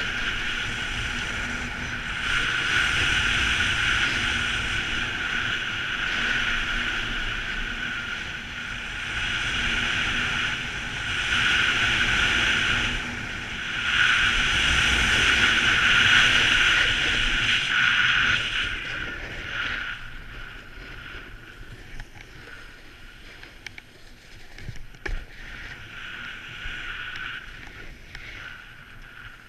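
Snowboard sliding and carving down groomed snow, with wind rushing over the action camera's microphone; the rush swells and eases every few seconds, then drops to a quieter hiss about two-thirds of the way through as the rider slows.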